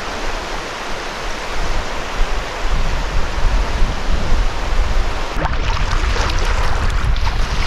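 Shallow sea water swishing and splashing around the legs of someone wading knee-deep: a steady rush that grows rougher and more uneven in the second half.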